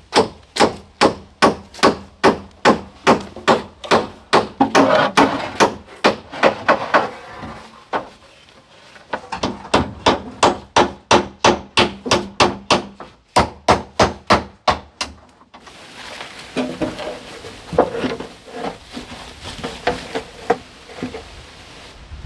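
Quick, even blows striking wood, about three a second, in runs with a short break about eight seconds in. They stop about fifteen seconds in, followed by quieter rustling and a few light knocks.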